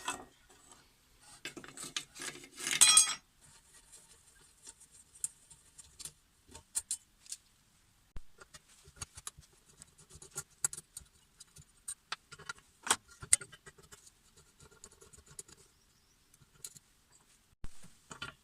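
Small metal parts and hand tools being handled during repair work: scattered clicks and light metallic clinks, with a louder rattling clatter about three seconds in.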